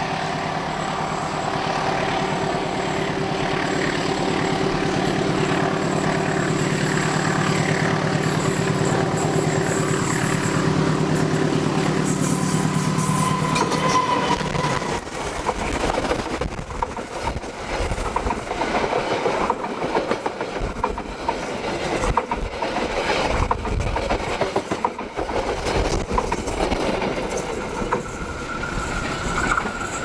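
A passenger train approaching and passing close by. The locomotive's engine drone builds over the first half, then gives way to the rattle and clatter of the coaches' wheels over the rail joints. A thin, steady high tone comes in near the end.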